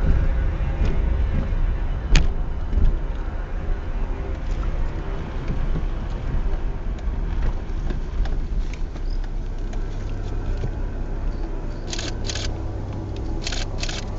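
Car driving slowly on a rough, cracked concrete road, heard from inside the cabin: a steady low engine and tyre rumble with a sharp knock about 2 seconds in and smaller clicks. Several short high-pitched bursts come near the end.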